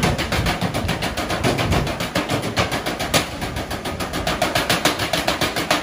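Live percussion group drumming: a fast, continuous run of evenly spaced hard strikes with no break.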